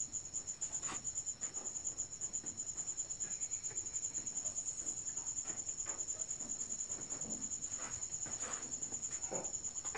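Crickets chirping steadily in a rapid high pulse, with faint, irregular gurgles and hisses as trapped air is pressed out through a waterbed mattress's open fill nozzle.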